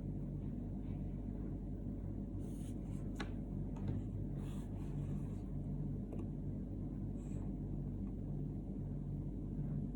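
A steady low hum, with a few faint clicks and soft hissy rustles.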